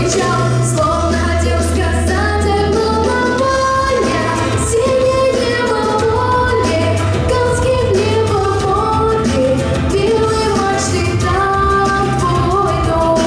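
A woman singing a slow song in Russian, holding long melodic notes over instrumental accompaniment with sustained bass notes.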